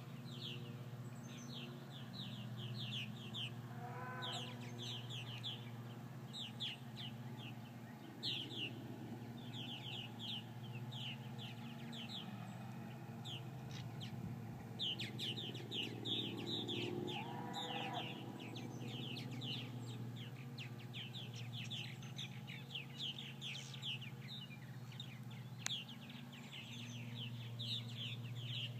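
A flock of purple martins calling overhead: a dense, continuous chatter of short, falling chirps.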